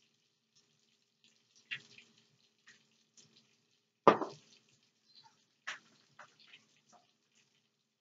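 Fish cakes frying in oil in a pan: a faint sizzle with scattered crackling pops, and one sharp knock about four seconds in.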